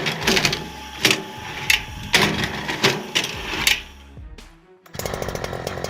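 A series of sharp knocks at uneven intervals, then a brief hush. Near the end a Husqvarna 365 two-stroke chainsaw starts running with a fast, even ticking beat.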